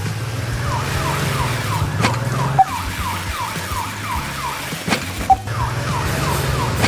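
A siren-like electronic warble: a quickly repeating falling chirp, about four a second, over a steady low hum, with a few sharp clicks.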